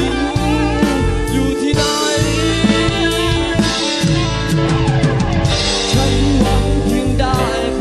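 Band playing rock music, with a drum kit and electric guitar and some bending guitar or vocal lines over a strong bass.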